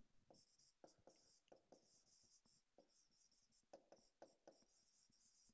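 Faint, scattered taps and light scratching of a stylus writing on a digital pen surface.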